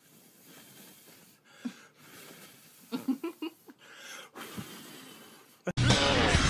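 Mostly quiet, with a few faint, short soft sounds. Near the end, music starts abruptly and is much louder.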